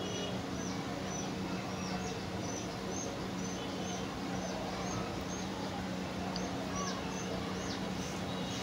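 Small bird chirping repeatedly: short high chirps, about one or two a second, over a steady low hum of background noise.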